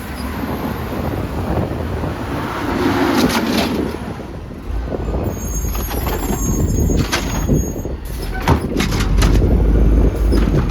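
Garbage truck running, with several sharp metallic clanks and a brief high hiss partway through. Wind buffets the microphone throughout.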